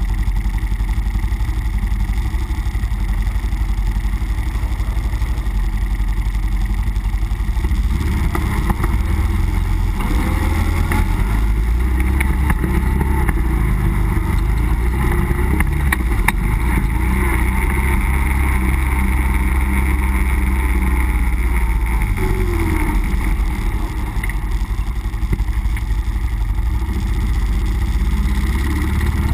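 Nissan Pathfinder driving off-road, its engine running with a steady low rumble. From about eight seconds in, scattered knocks and clatters join it for several seconds.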